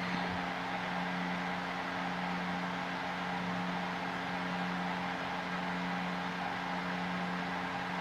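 Steady background hum with an even hiss and no other events: a constant low drone under faint broadband noise, the room or line noise of the recording during a pause in speech.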